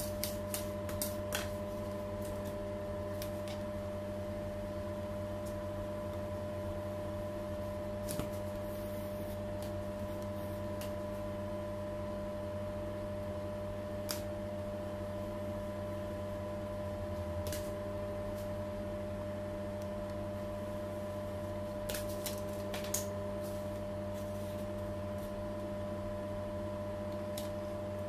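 Steady machine hum in a small room, with several fixed pitches and an even level. A few light clicks and taps come through it, mostly in the first second or two and again about three-quarters of the way in, as a cake is worked on a metal turntable with a plastic scraper.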